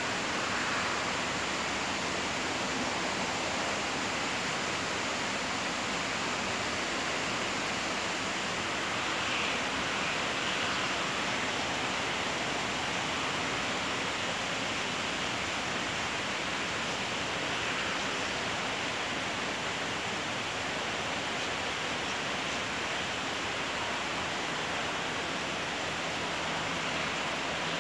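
Rain falling steadily, an even hiss with no letup.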